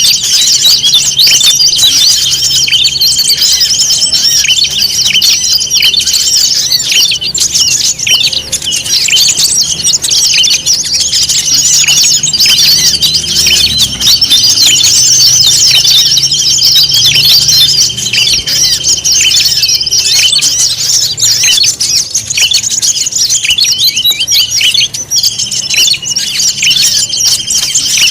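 Dense chorus of many small songbirds chirping and calling over one another, a bird-lure track of noisy bird calls, with a steady high trill underneath that drops out twice and returns.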